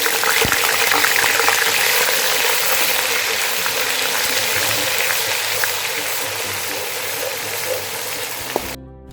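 Ground onion paste frying in hot oil in a kadai: a loud, steady sizzle, with a few sharp clicks near the start. The sizzle cuts off suddenly near the end and gives way to background music.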